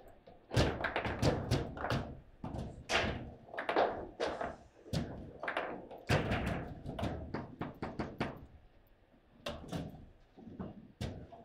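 Table football in play: an irregular, rapid run of hard knocks and thuds as the ball is struck by the plastic players and bounces off the table, with a short lull about nine seconds in.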